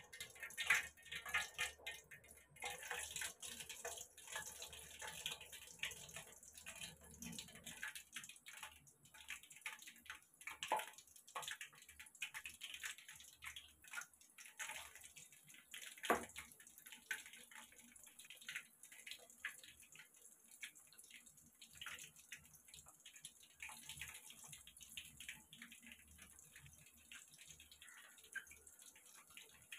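Battered baby corn deep-frying in hot oil in a steel kadai: a continuous sizzle with irregular small pops and crackles, busiest in the first few seconds as pieces go in, with one sharp pop about 16 seconds in.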